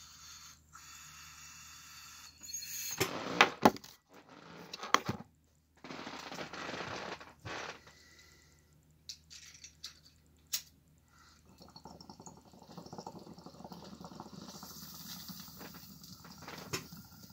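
Sharp clinks and knocks of glassware being handled and set down. Then come a few clicks and a steady bubbling of water in a glass bong as it is lit and drawn on, starting about two-thirds of the way in.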